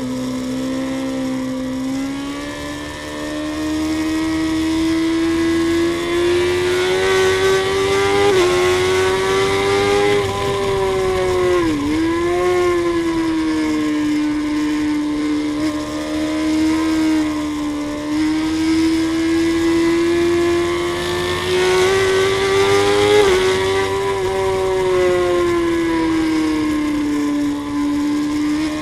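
Suzuki GSX-R inline-four sportbike engine at high revs, heard from a camera mounted on the bike. The engine note rises and falls as the rider opens and eases the throttle, with a sharp dip about twelve seconds in, over steady wind rush.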